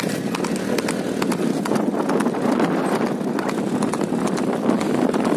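Horse's hooves clip-clopping on an asphalt road, a quick, uneven run of hoof strikes over a steady rushing noise.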